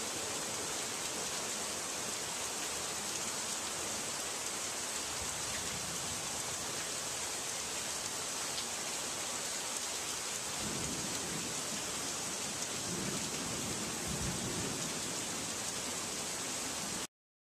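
Heavy rain pouring steadily, with low rumbles of distant thunder swelling twice in the second half. The sound cuts off suddenly near the end.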